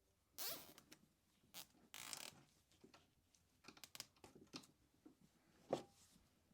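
A plastic zip tie being pulled tight around the end of a plastic fork head, in short ratcheting zips with a few handling clicks in between.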